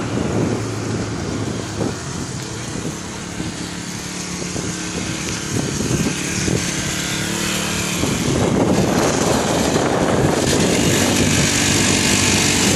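Pocket bike's small engine running, with a steady low buzz that gets louder and rougher about two-thirds of the way through as the bike comes close.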